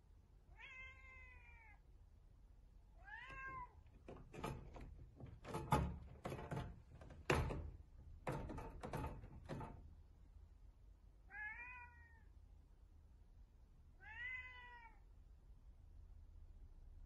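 Domestic cat meowing four times through a glass door, each meow about a second long. Between the second and third meows comes a run of knocks and thumps lasting several seconds as the cat paws and bangs on the glass pane to be let in.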